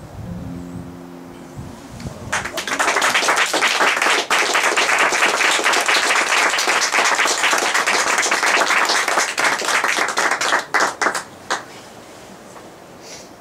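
The last notes of an acoustic guitar and fiddle tune ring out, then a group applauds with clapping hands for about nine seconds, thinning to a few last claps before it stops.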